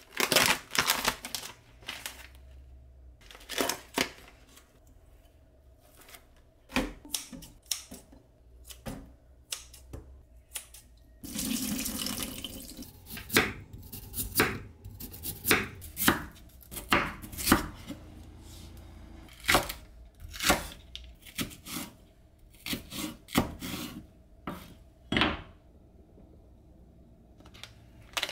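Kitchen knife chopping on a cutting board in uneven runs of knocks with short pauses between them, and a brief rush of running water about eleven seconds in.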